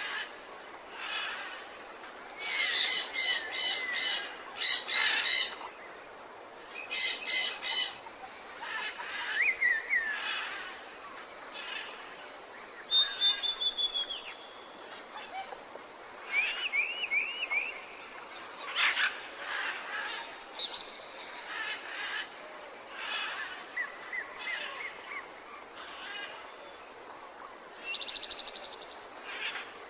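Tropical forest ambience: many different birds calling, whistling and trilling over a steady background hiss. The loudest parts are rapid, harsh repeated calls a few seconds in and again around the eight-second mark.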